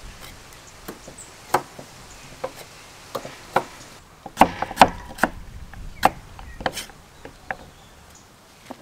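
Large kitchen knife slicing carrots into sticks on a thick wooden chopping board: irregular sharp knocks of the blade meeting the wood, loudest in a quick run of cuts about halfway through.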